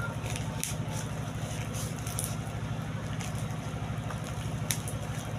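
A steady, fast-pulsing low mechanical hum like an idling engine or motor, with scattered sharp clicks and rustles of handling over it.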